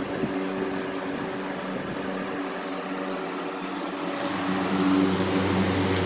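2007 Lakewood 20-inch brace-bladed box fan, model 101CC, running steadily: a motor hum under the rush of air from the blades, in good running order. It grows louder about four seconds in as the microphone comes close to the grille.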